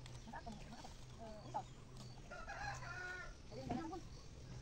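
A rooster crowing once, a call of about a second starting a little past halfway through, with a few shorter calls before and after it.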